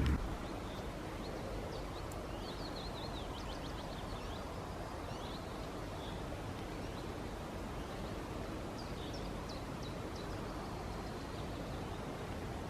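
Woodland ambience: a steady background hiss with faint songbirds chirping and trilling in a few short bursts, a cluster a couple of seconds in and another near the end.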